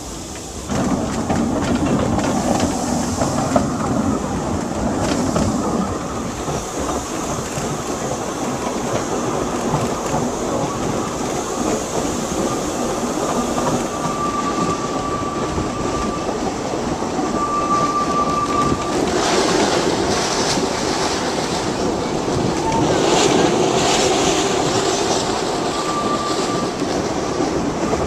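A 2 ft gauge narrow-gauge train running, heard from one of its carriages: a steady rumble and clatter of wheels on the rails. Short high wheel squeals come a few times in the second half.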